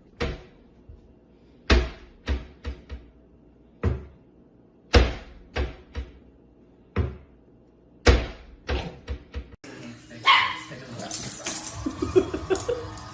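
A dog barking in about a dozen short, sharp single barks at irregular intervals. In the last three seconds these give way to a busier, noisier stretch with wavering high-pitched cries.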